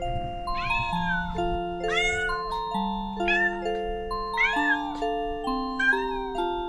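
A cat meowing over and over, about five rising-and-falling meows a little over a second apart, which the owner takes as asking to be let out. Background music of steady chiming notes plays under it.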